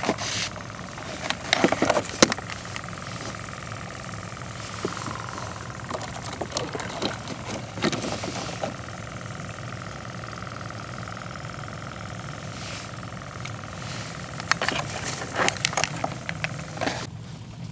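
Hard plastic bait container and lid knocking and rattling as they are handled, in two clusters near the start and near the end. Under it, a steady hum from a small motor, the kayak's battery-powered bait-well bubbler (aerator pump) running.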